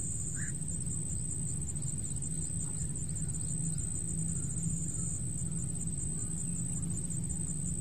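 Steady outdoor ambience: a continuous high, thin insect trill over a low, even rumble, with a few faint chirps and no shot.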